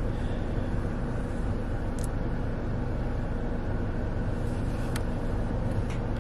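Steady low hum of a car heard from inside the cabin, with a few faint clicks about two, five and six seconds in.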